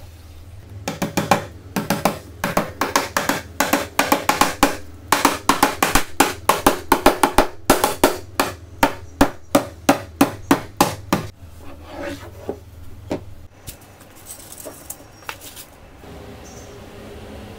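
Claw hammer driving small nails through a hardboard panel into a wooden frame: quick, sharp strikes about three a second for some ten seconds, then a few scattered taps. Near the end, faint rubbing of styrofoam sheets being fitted into the frame.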